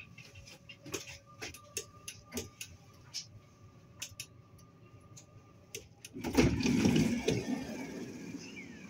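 Inside a stopped Stadler Flirt electric train: a faint steady electrical hum with scattered clicks, then, about six seconds in, a sudden loud rush of noise that fades over a couple of seconds.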